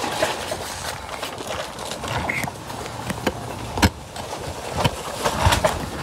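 Handling noise as brake pads are worked into a motorcycle's rear brake caliper: scraping and rustling with a few sharp metallic clicks and knocks, the loudest just under four seconds in.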